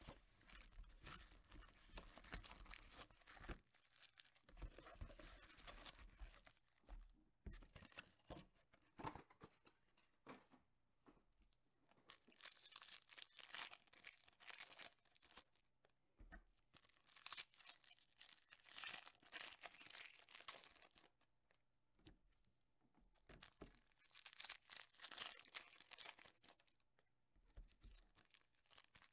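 Quiet crinkling and tearing of trading-card packaging: the wrapper coming off a 2014 Topps Chrome Mini box and its foil packs being handled and ripped open, in repeated stretches with short pauses between.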